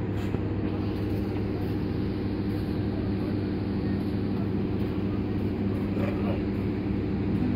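Steady low hum of a standing diesel passenger train's engines idling, several even tones held without change.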